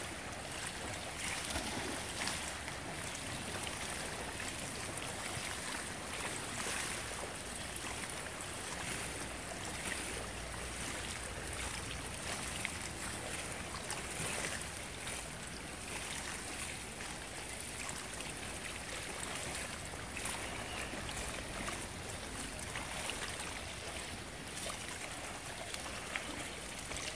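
Steady splashing and churning of pool water from a swimmer's arm strokes and kicks.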